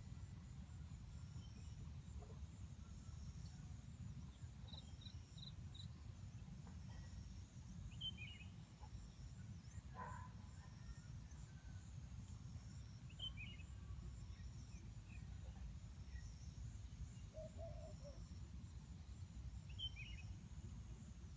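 Faint outdoor ambience: a steady low rumble under a faint high insect drone, with a few short bird chirps scattered through.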